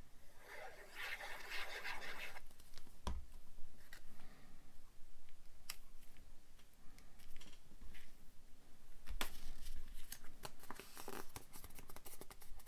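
Paper and card handled at a craft table: a rustle as glue is squeezed onto a die-cut paper label, a knock about three seconds in, then rubbing and crinkling as the label is pressed down onto a paper envelope, with scattered light clicks.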